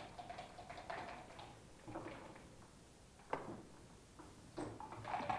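A few faint clicks and taps of backgammon checkers or dice being handled on the board, with one sharper click a little past the middle.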